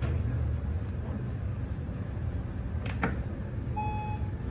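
Steady low rumble of a building's elevator lobby. About three seconds in there is a sharp click, and just under a second later a single short electronic beep from the Otis elevator bank's signals.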